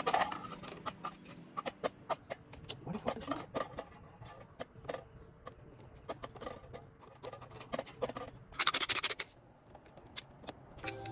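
Irregular clicks, taps and light scraping of tools and wiring parts being handled during doorbell hookup, with one short, loud rasping noise about nine seconds in.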